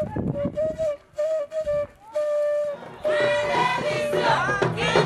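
A lone flute plays a short melody of held notes in brief phrases with gaps between them. About three seconds in, the full gangan-trap beat comes in with a bass line and voices.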